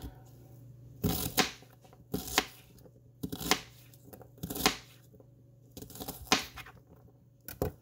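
Small paring knife chopping a white onion directly on a countertop: sharp, irregular cuts about once a second, some in quick pairs, over a low steady hum.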